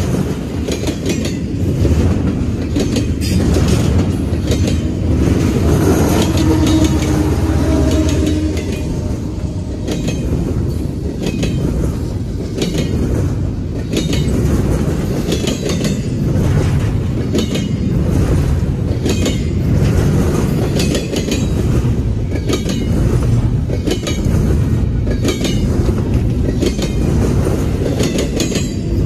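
Double-stack intermodal train's loaded well cars rolling past, a steady low rumble with a run of wheel clicks and clacks over the rail joints. A brief squealing tone comes in about six seconds in.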